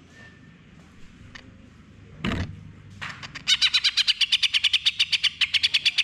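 Caged male green leafbird (cucak hijau) singing a fast, loud run of even, repeated notes at about ten a second, starting about three seconds in: the rapid 'full nembak' burst that keepers play to set silent birds singing. A single short thump comes about two seconds in.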